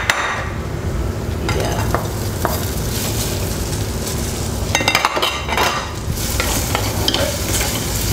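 Pieces of crispy pata (deep-fried pork knuckle) sizzling in hot coconut oil and spice masala in an earthen pot, stirred with a wooden spatula. Clusters of scraping clicks against the pot come a second or two in and again about five seconds in.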